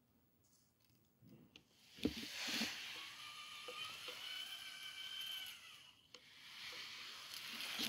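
Electric drive of an RC Claas Xerion 5000 model tractor whining with a hiss of gears, rising in pitch as it speeds up and falling away as it slows, after a single knock about two seconds in. A second, shorter stretch of hiss comes near the end.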